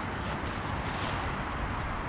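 Steady rushing background noise of traffic on a nearby highway.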